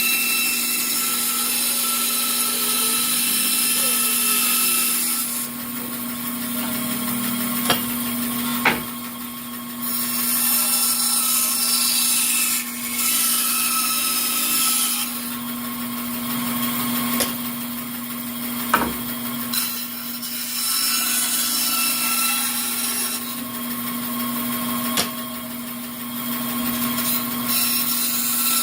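Bandsaw running with a steady hum, its blade cutting through a wooden board in spells of louder hiss with short lulls in between. A few sharp clicks break through.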